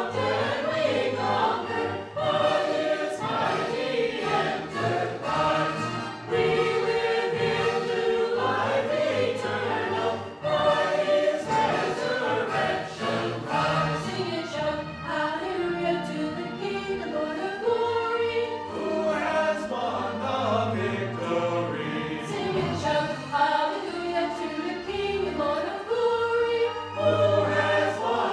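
Small mixed-voice church choir, men and women together, singing a gospel Easter cantata number, with some long held notes.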